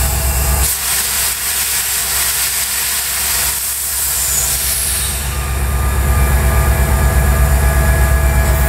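EMD GT36HCW diesel-electric locomotive heard from inside the cab in a tunnel: a deep, pulsing engine rumble under a steady hiss. About a second in the rumble drops back and the hiss takes over. From about five seconds in the low, rhythmic engine pulse comes back up.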